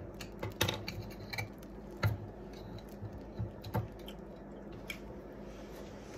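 Scattered light metallic clicks and taps, about eight of them and irregular, most in the first four seconds, as a metal can and a kitchen tool are handled at the counter, over a faint steady hum.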